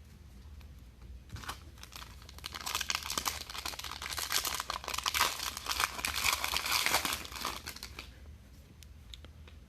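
A trading-card pack wrapper crinkling as it is torn open and handled, a dense crackle that builds after the first second and fades out near the end.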